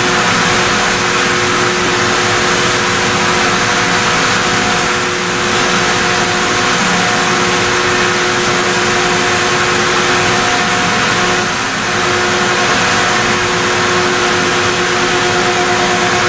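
CNC machining-centre spindle running while a multi-flute end mill rough-cuts a hardened STAVAX tool-steel block in Z-level passes. It is a steady machining noise with a few constant whining tones over it.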